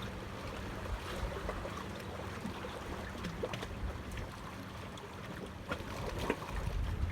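Wind buffeting the microphone over water lapping, with scattered small clicks and knocks.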